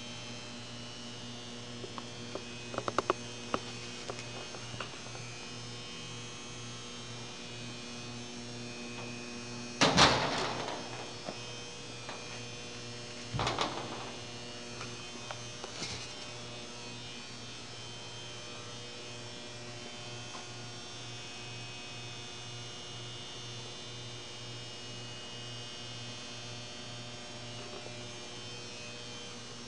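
Steady electrical hum. It is broken by a quick run of clicks about three seconds in and by two louder knocks, about ten and thirteen seconds in.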